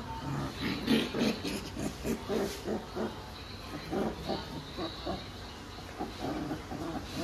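Rottweiler puppies play-fighting, making short grunts and low growls in quick succession, about three or four a second, with a few light scuffling clicks.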